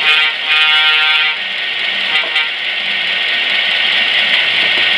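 Sound decoder of an Intermountain HO-scale EMD F7A model locomotive playing through its small onboard speaker: a short toot and then a longer blast of the diesel air horn, ending about a second and a half in, over the steady running sound of the diesel engine.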